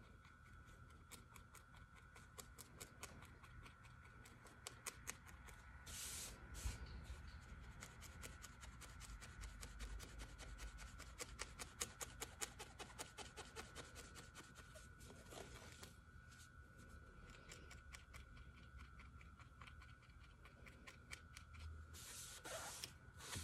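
Felting needle repeatedly stabbing wool fibre into a foam pad: faint, quick, even pokes, several a second. Twice there is a short rustle of the wool being handled.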